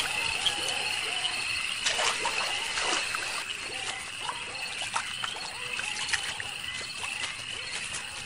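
Water trickling and splashing over a steady, high, shrill night-insect chorus, with scattered small clicks.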